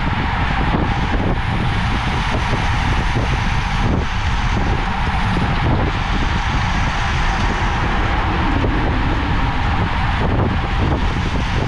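Steady rush of wind buffeting a bicycle-mounted camera's microphone at about 55 km/h, mixed with the hum of road-bike tyres rolling on asphalt in a fast-moving pack.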